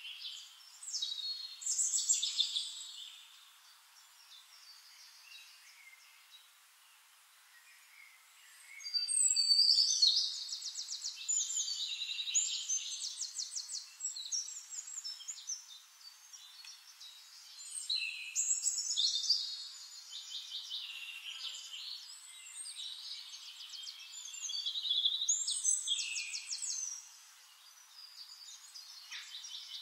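Songbirds singing: a run of high, rapid trilled and whistled phrases, one after another, with a lull of a few seconds early on before the song picks up again, loudest about ten seconds in.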